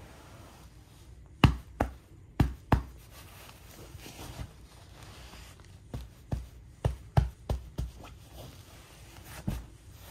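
A hand patting and pressing down on a bed pillow, giving a series of short dull thumps: four about a second and a half in, a quicker run of six around the middle, and one more near the end.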